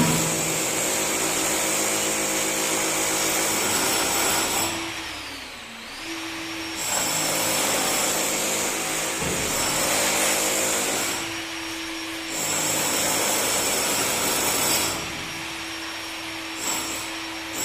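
A power tool's motor running in spells, switched off and winding down with a falling whine a few seconds in, then started again several times.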